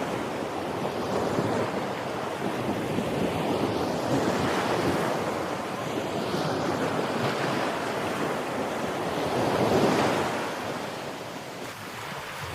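Sea waves breaking and washing onto the shore in a continuous surf that swells and ebbs, with a larger wave building and breaking near the end.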